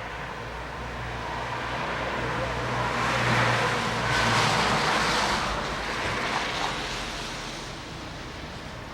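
A vehicle passing: tyre and engine noise swells to a peak a few seconds in and fades away again.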